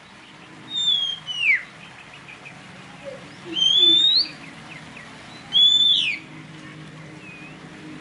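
Songbird whistling: three clear, loud whistled phrases about two seconds apart, the first sliding down in pitch, the next sliding up, the last sliding up and then dropping.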